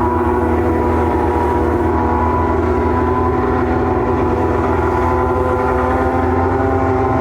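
McLaren MP4/6 Formula 1 car's Honda 3.5-litre V12 running steadily at idle just after start-up, an even, high-pitched engine note with no revving.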